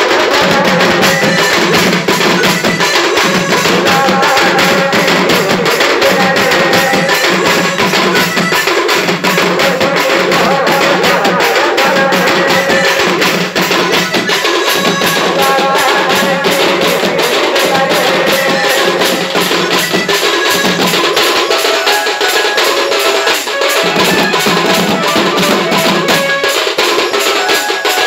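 Loud band music: a fast, dense rhythm on stick-beaten barrel drums, with a melody and a low bass note that drops in and out over it.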